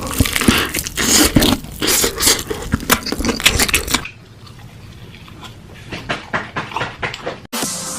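Close-miked eating of spicy chicken: chewing and crunching with wet clicks, busy and loud for the first half, then softer and sparser from about halfway, cutting off shortly before the end.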